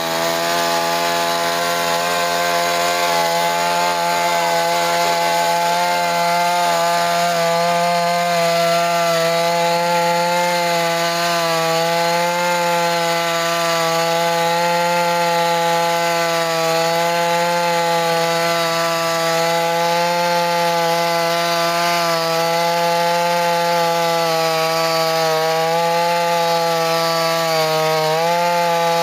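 Chainsaw running steadily at high speed while cutting through wood, a continuous engine tone whose pitch wavers only slightly.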